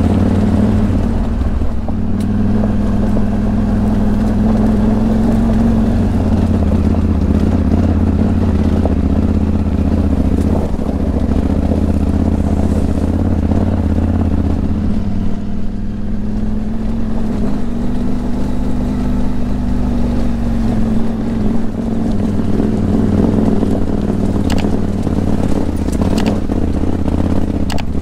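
Adventure motorcycle's engine running as it is ridden over a stony dirt trail, its pitch climbing and easing off with the throttle a couple of times.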